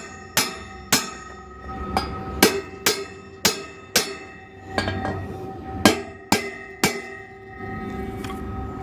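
Hammer blows driving steel anchors into concrete through a railing base, about two strikes a second with a short pause midway, each leaving a metallic ring. The hammering stops about seven seconds in.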